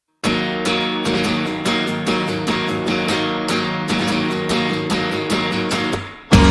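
Background music: a guitar strumming a steady rhythm, which dips briefly near the end before a louder full-band rock section comes in.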